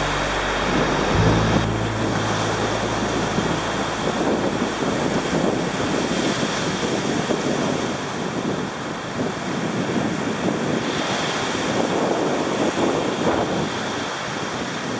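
Sea surf breaking on a sandy beach, with strong wind blowing over the microphone.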